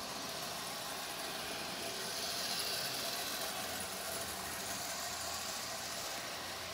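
Small electric motor of a Lionel rail inspection motor unit running steadily, whirring as it pulls a passenger car around three-rail O-gauge track, with a faint hum beneath; it grows a little louder about two to three seconds in.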